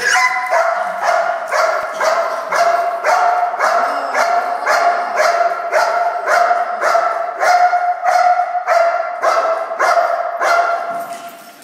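Belgian Malinois barking rapidly and steadily at a helper, nearly three barks a second, in the hold-and-bark exercise of Schutzhund protection work; the barking fades and stops shortly before the end.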